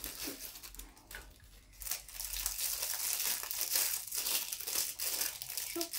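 Thin clear plastic packaging crinkling as hands handle and unwrap small parts. It is soft at first, then dense and continuous from about two seconds in.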